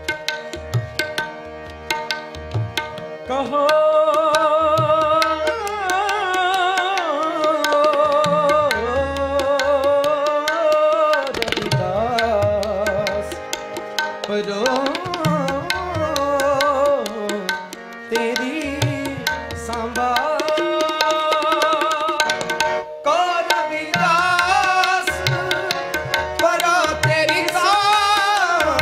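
Sikh kirtan: male singing of a shabad in a wavering, ornamented melody over steady harmonium tones, with tabla keeping the rhythm. The singing comes in about three seconds in, after harmonium and tabla alone.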